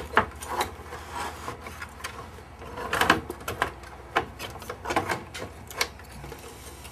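Scattered clicks, knocks and scraping from the key bed of a Sequential Circuits Prophet-5 synthesizer being worked up and out of its case.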